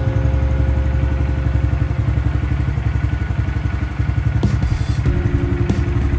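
Honda Grom's 125 cc single-cylinder engine idling steadily through a Yoshimura R-77 Cyclone exhaust. A few sharp clicks come near the end.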